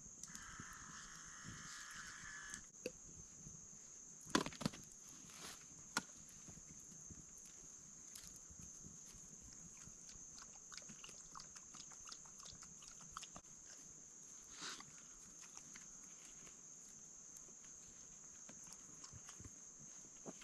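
Faint, steady high-pitched chirring of insects, with a few sharp knocks and rustles of handling, the loudest about four and a half and six seconds in.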